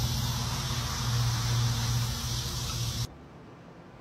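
Steady low hum with a broad hiss that cuts off abruptly about three seconds in.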